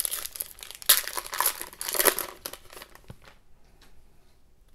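Plastic wrapper of a trading-card pack crinkling as it is torn open, loudest in the first two seconds, then dying down to faint handling of the cards.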